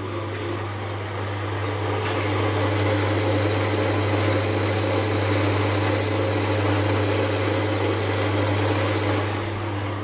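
Pedestal drill press running, its twist bit cutting a hole through a steel pin clamped in the vise: a steady motor hum with the grinding noise of the cut, louder from about two seconds in and easing near the end.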